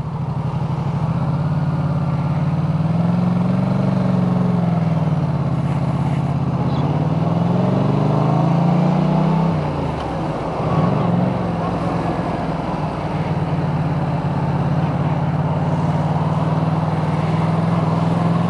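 Yamaha MT-07's parallel-twin engine, through an Akrapovic titanium exhaust, pulling away and accelerating. The revs rise and drop with gear changes for roughly the first ten seconds, then settle to a steady pitch while cruising. Heard through a microphone inside the rider's full-face helmet.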